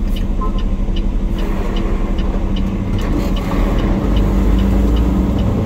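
Peterbilt 389 semi truck's diesel engine running, heard from inside the cab, growing louder about two-thirds of the way through. A turn signal ticks steadily over it, about two and a half times a second.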